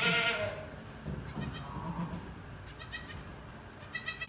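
Goats bleating beside a newborn kid: one loud bleat right at the start, then several soft, short bleats.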